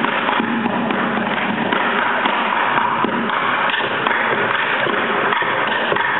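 A large group drumming with sticks on plastic buckets: a dense, steady clatter of many overlapping hits.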